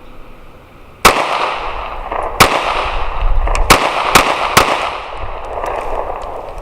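Five 9mm pistol shots from a Glock 43x, each ringing out with a trailing echo. The first comes about a second in, the next two about a second and a quarter apart, and the last two in quick succession.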